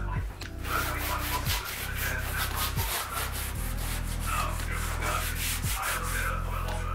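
Sponge scrubbing a countertop in quick back-and-forth rubbing strokes, about four or five a second.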